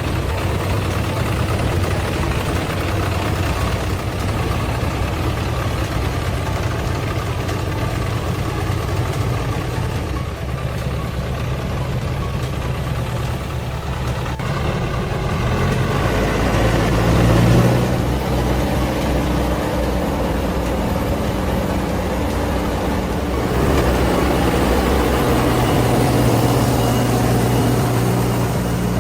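Logging truck's diesel engine running steadily in a low gear on a muddy slope. The note swells briefly a little past halfway, eases back, then rises again and holds near the end.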